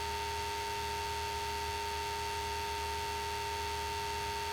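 Steady two-tone electrical whine in the Cessna 172's cockpit audio feed, with the idling engine only a faint low hum beneath it.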